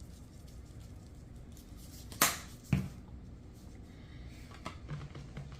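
Two short, sharp taps about half a second apart, a little over two seconds in, over a faint steady low hum.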